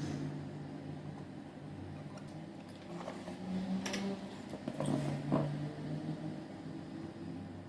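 A few small clicks and scrapes of handling on the workbench between about three and five and a half seconds in, over a steady low electrical hum.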